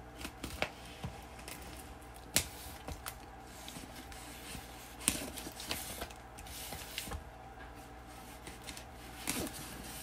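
A knife blade slitting packing tape along the seams of a cardboard box: irregular short scratchy cuts and scrapes, with a few sharper ticks.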